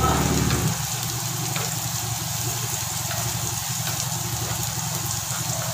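Eel frying in hot oil with lemongrass and chili: a steady sizzle with small scattered crackles, over a steady low hum.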